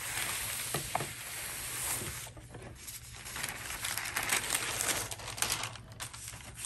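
Heavy xuan painting paper, folded inside a backing sheet, being ironed flat and handled: a steady sliding hiss for about the first two seconds, then irregular paper crinkling and rustling.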